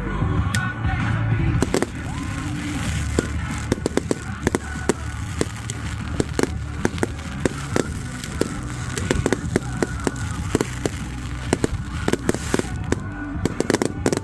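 Fireworks going off: many sharp, irregular bangs and crackles in quick succession, with music playing underneath.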